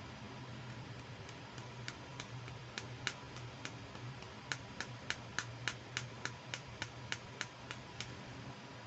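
Small, sharp clicks from plastic toy accessories being handled. A few come scattered at first, then an even run of about three a second in the second half, over a steady low hum.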